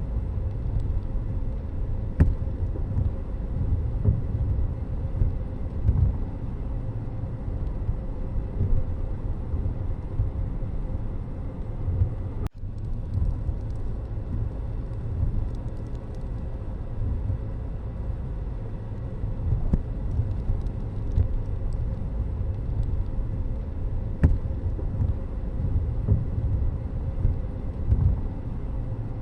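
Road and vehicle noise from travelling in traffic: a continuous low rumble, broken once by a sudden brief dropout about twelve seconds in.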